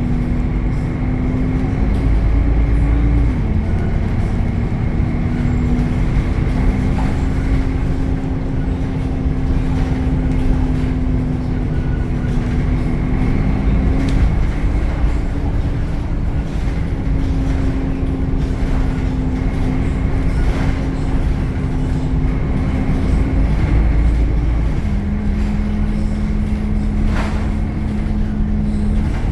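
Temsa Avenue LF city bus running, heard on board: its DAF Euro 5 diesel engine and ZF gearbox give a loud low rumble with a steady hum that shifts in pitch several times, and a faint steady high whine above it.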